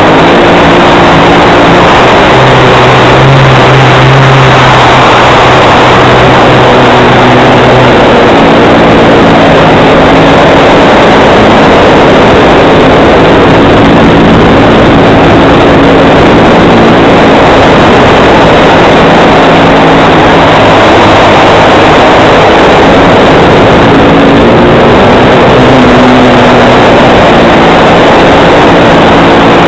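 OS FS 91 four-stroke glow engine of an RC plane running in flight, heard from a wing-mounted camera under heavy wind rush; very loud, with the engine note shifting up and down a few times as the throttle changes.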